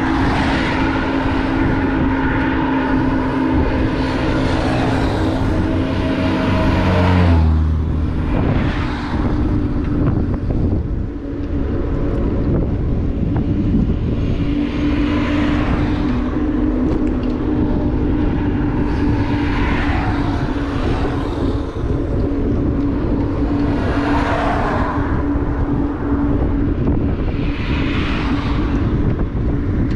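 Motorbike running at steady road speed with continuous wind and road noise. A deeper engine note slides down in pitch about seven seconds in.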